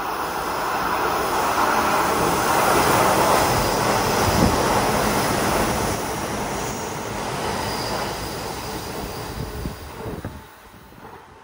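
Hanshin 8000 series electric train passing through a station at speed without stopping: the rumble and wheel noise on the rails build up, are loudest a few seconds in, then ease off and drop away sharply about ten seconds in as the train clears the platform.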